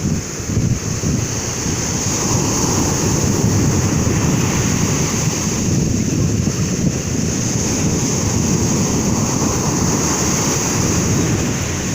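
Sea waves washing continuously, with wind buffeting the microphone in a low, choppy rumble.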